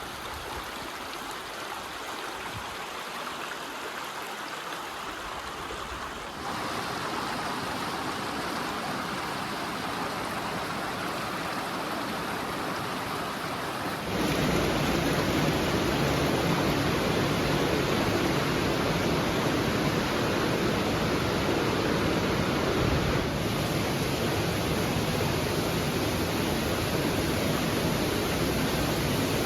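Steady rushing of creek water in a slot canyon. It jumps louder and fuller twice, about six and fourteen seconds in.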